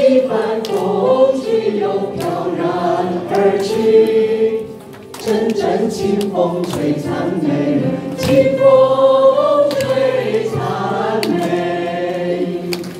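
A small group singing a song together into microphones, with a short break between phrases about five seconds in.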